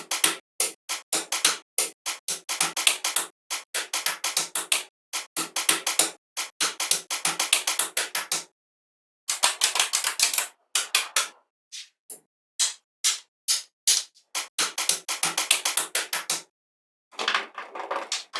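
Rapid series of short, crisp strokes, several a second, in runs broken by a couple of brief pauses.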